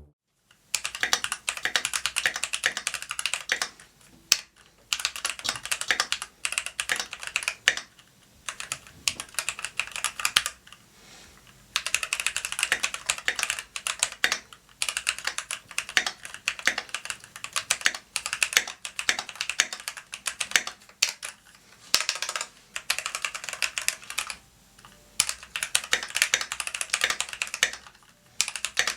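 Fast typing on a Keychron V1 75% mechanical keyboard: continuous runs of key clacks, broken by brief pauses every few seconds.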